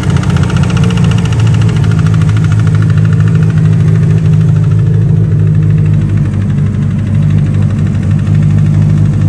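Turbocharged engine of a Nissan S13 with an S15 clone turbo, running at a steady idle with an even pulsing note. It is loud, and cuts off suddenly near the end.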